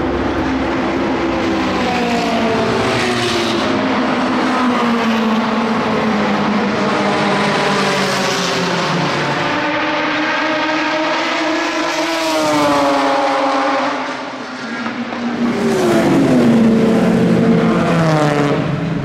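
Historic race cars' engines running hard as cars pass one after another on the track. Each pass makes the engine notes rise and then slide down. The loudest pass comes about three-quarters through, its note dropping steeply as it goes by.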